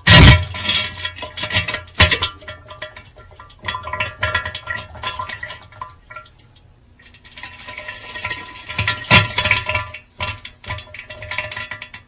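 Comic pooping sound effect: a dense run of wet splatters, plops and drips with a brief lull partway through, over faint music.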